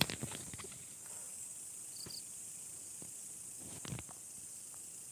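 Night insects keeping up a steady high-pitched chorus, with a few faint ticks and rustles.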